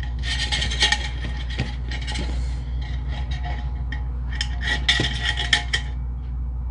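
Flat steel recoil spring clinking and scraping against an aluminium pull-starter housing as it is fed and wound into the housing by hand, with loose coils rattling; the clinks stop about six seconds in. A steady low hum runs underneath.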